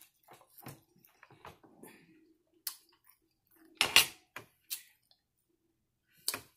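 Metal fork clinking and knocking against a dinner plate in a few sharp, separate hits, the loudest about four seconds in, with quiet eating sounds from biting into barbecued chicken between them.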